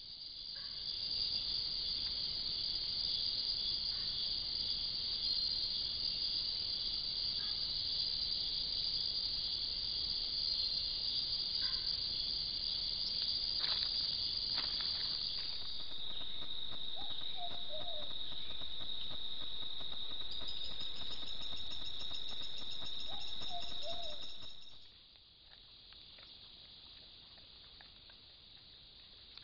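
Night-time tropical rainforest insect chorus: a steady, high-pitched trilling that shifts to a slightly lower tone about halfway through, with a second, higher trill joining it. It cuts off abruptly near the end, leaving a much fainter forest background.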